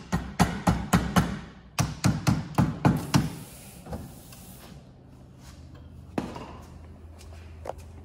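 Two quick runs of sharp metallic taps, about four a second, as the battery cable terminals are worked back onto the car battery; a low steady hum follows about three and a half seconds in.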